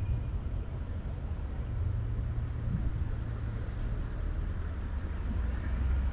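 Car driving slowly along a town street: a steady low rumble of engine and tyre noise.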